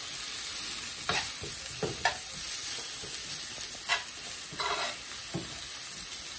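Sliced red onions sizzling as they sauté in a nonstick frying pan, stirred with a metal spatula, with a handful of short scrapes and taps of the spatula against the pan.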